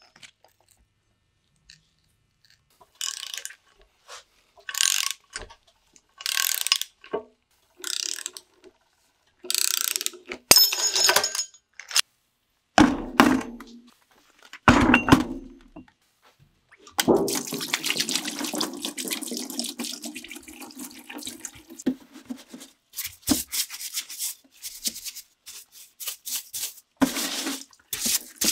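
Differential gears handled in a plastic drain pan: a few short scrapes and clatters, then two heavy thunks as the pinion gear and the ring gear with carrier are set into the pan. Next comes about five seconds of liquid pouring into the pan, and near the end a stiff brush starts scrubbing the gears in the cleaner.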